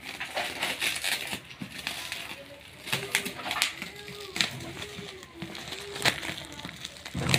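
Plastic wrapping and packing tape crinkling, rustling and tearing as a parcel is cut open by hand, with irregular clicks and scrapes.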